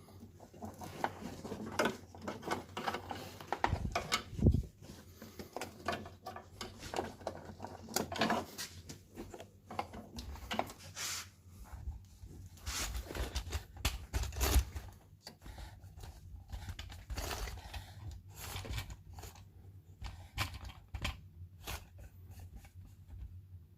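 Hands working with parts and tools: irregular clicks, light knocks and rustling at uneven intervals, over a faint steady low hum.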